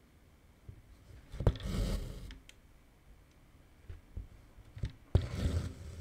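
Embroidery needle and cotton floss pulled through 18-count cross-stitch fabric: twice, about a second and a half in and again about five seconds in, a sharp tick followed by a short rasp of thread drawing through the cloth, with a few faint ticks between.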